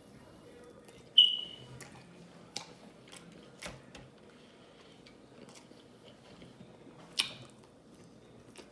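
Close-up eating sounds: soft chewing and biting of food, broken by a few sharp clicks. The loudest click, about a second in, has a brief ringing tone.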